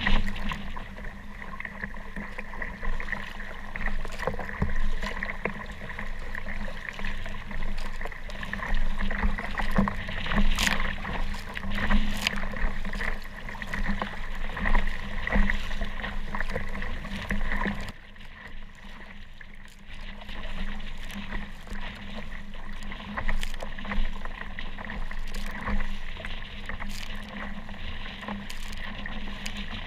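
Water splashing and sloshing around a kayak on choppy, wave-tossed water, rising and falling with sharper splashes now and then. A little past halfway the sound drops and turns duller for a couple of seconds, then picks up again.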